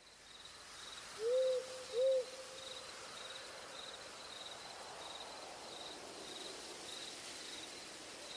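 Night ambience: an owl hoots twice in quick succession about a second in, over crickets chirping steadily about twice a second.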